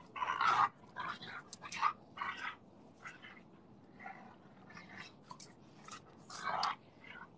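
Two Cane Corso dogs playing tug-of-war with a rope toy, making a run of short, irregular play noises as they pull and mouth it. The loudest bursts come in the first second and again at about six and a half seconds.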